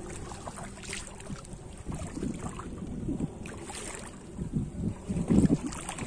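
Water sloshing and splashing as a person wades knee-deep through a shallow river, in irregular surges, the loudest about five seconds in.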